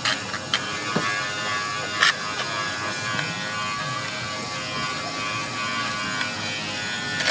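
Double-ended bench buffing motor running with a steady buzzing hum while a plastic headlight lens is held against its spinning spindle to polish it. A few sharp clicks come in the first couple of seconds.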